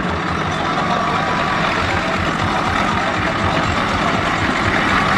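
Massey Ferguson tractor's diesel engine running steadily as it pulls a loaded trailer.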